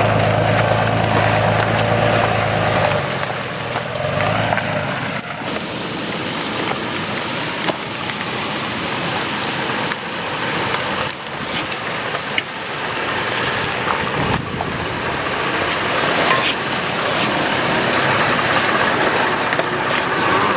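Off-road 4x4 truck on a trail: engine running with a steady drone for about the first three seconds, then mostly rough road and tyre noise with scattered knocks.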